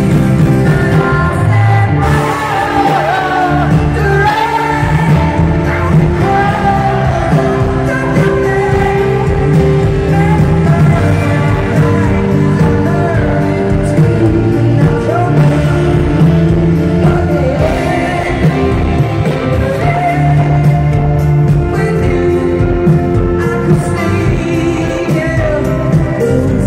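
Live pop song played through a stadium PA: a lead singer's sustained sung melody over full band accompaniment, heard from high in the stands of a large open stadium.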